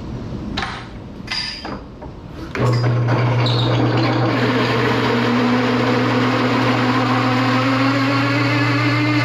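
A few clanks of metal being handled, then about two and a half seconds in an electric power tool starts up and runs steadily on steel, a loud low hum under a dense grinding noise, with a faint tone that slowly rises in pitch.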